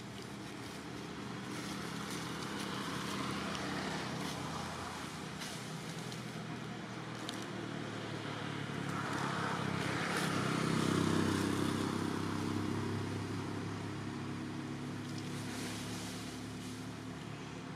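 A motor vehicle passing: a low engine hum that grows louder to a peak a little past the middle, then fades. A few faint clicks are scattered through.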